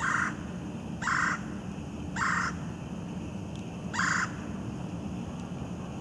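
Red-bellied woodpecker calling: four short calls, the first three about a second apart and the last after a longer pause, over a steady low background rumble.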